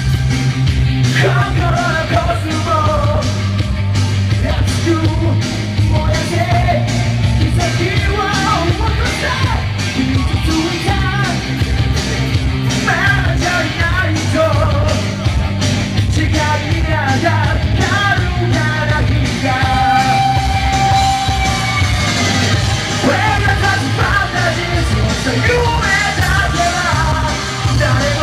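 Live rock band playing: electric guitars and drums under a male vocalist singing into a microphone.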